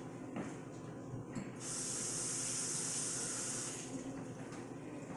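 A steady, high hiss lasting about two seconds, starting about a second and a half in and stopping abruptly, with a few faint knocks before it.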